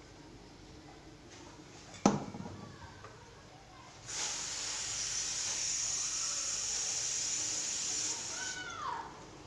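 A sharp knock about two seconds in, then a steady high hiss for about four and a half seconds. The hiss cuts off near the end into a short, falling cat's meow.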